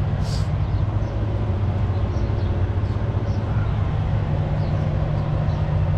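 Diesel engine idling steadily with a low, even hum, with a short hiss about a third of a second in.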